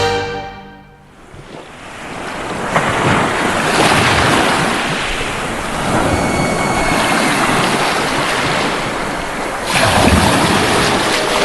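Sea water and waves rushing over the camera's microphone as a steady noise that swells after the first couple of seconds and jumps louder about ten seconds in.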